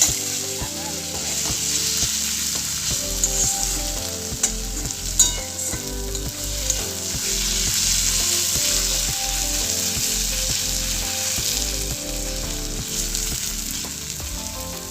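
Garlic frying in hot oil in a pan, sizzling steadily while it is stirred, with a few sharp knocks of the spoon against the pan. It is being cooked until its raw smell goes off.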